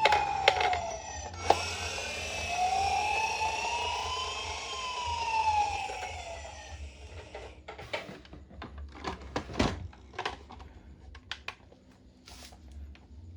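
Toy ambulance minicar's electronic siren wailing, its pitch rising and falling slowly, then cutting off about seven seconds in. Scattered short clicks and taps follow.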